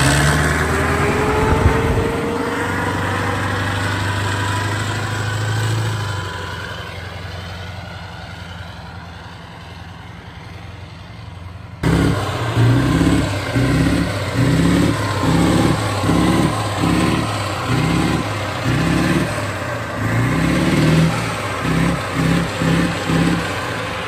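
Warrior armoured vehicle's engine being thrashed: a rising whine as it pulls away, then, after a sudden cut about halfway through, repeated hard revs roughly once a second, coming quicker near the end.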